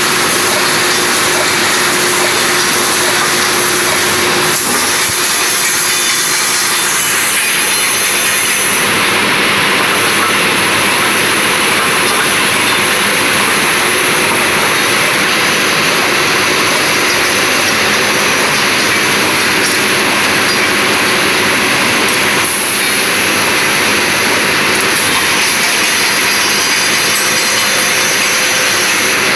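Steel wire mesh welding machine running, with its line wire fed from coils: a loud, steady mechanical noise with a strong hiss.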